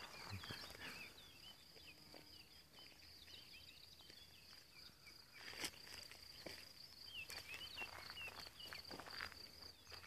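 Faint birdsong from several small birds, short quick chirps and twitters, over a steady high-pitched whine. A few soft footsteps in dry grass come through about halfway and near the end.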